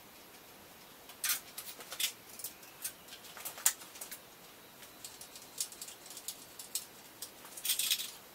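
Irregular light clicks and clinks of a hand tool and small fasteners against an aluminum angle beam, with a short rattle of hardware picked from a metal cup near the end.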